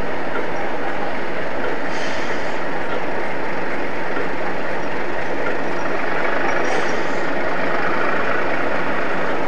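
Two coupled Class 37 diesel locomotives moving slowly, their engines running with a steady, loud sound. Two brief high-pitched sounds cut through, about two seconds in and again near seven seconds.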